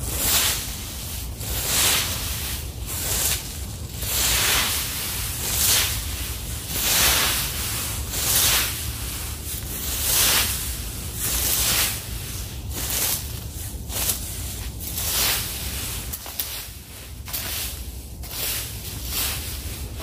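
Fan leaf rake dragged through a thick layer of dry fallen leaves on grass: repeated scratchy rustling swishes, about one stroke every second or so.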